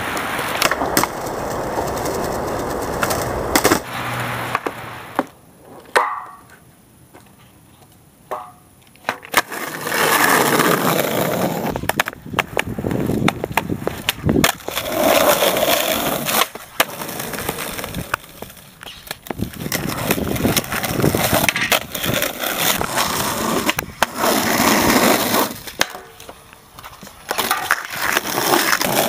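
Skateboard wheels rolling on rough concrete, with sharp clacks of the board popping and landing. The rolling drops away for a few seconds about six seconds in.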